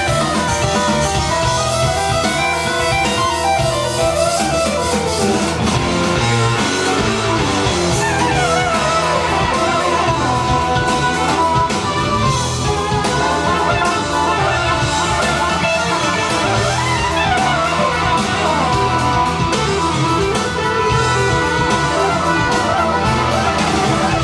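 Rock music with guitars and drums playing at a steady level through a hi-fi system: a Pro-Ject DAC Box S2+ feeding a Rega Elex-R amplifier and Dynaudio Excite X14 speakers.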